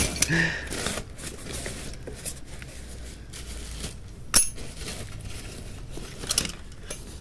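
Steel ratchet buckles and hooks of cargo tie-down straps clinking against each other as they are handled in a cardboard box, with rustling of the cardboard and wrapping. One sharp metallic clink stands out about four seconds in.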